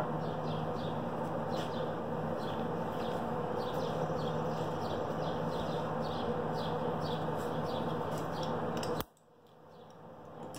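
A steady machine drone with a low hum, with birds chirping repeatedly over it. About nine seconds in, all of the sound drops out abruptly and then slowly fades back in.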